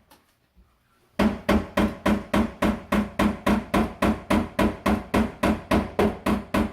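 Hammering: a quick, even run of ringing hammer blows, about three to four a second, starting about a second in.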